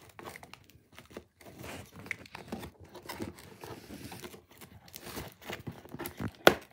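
Scissors slicing through packing tape along the seam of a cardboard box: irregular scraping, tearing and crinkling, with one sharp, louder snap near the end.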